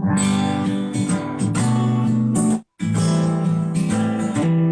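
Acoustic guitar strummed chords, the instrumental lead-in to a song. The playing stops completely for a moment a little over halfway through, then picks up again.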